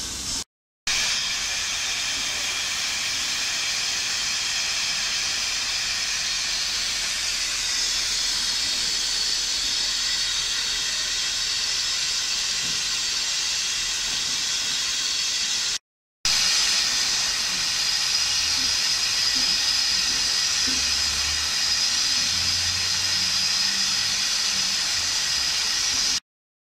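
Steam hissing steadily from the LNER A3 Pacific locomotive 60103 Flying Scotsman, broken twice by brief silent gaps about a second in and about sixteen seconds in. A faint low rumble joins it near the end.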